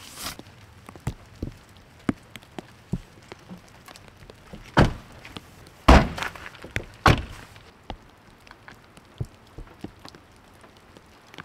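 A few heavy thuds from a Tesla car door and body about five to seven seconds in, as a person climbs out of the car. Scattered drips tick on the car and the snow-covered tent throughout.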